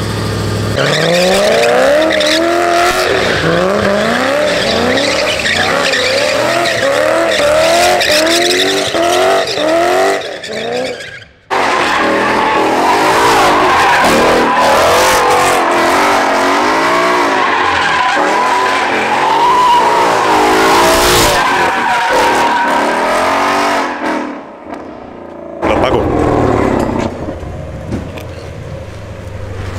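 Drift car engine revving up and down in quick repeated surges as the car slides, with tyre squeal. It cuts off suddenly about eleven seconds in. It then resumes with wavering revs over a steady tyre screech, and drops to a quieter engine note near the end.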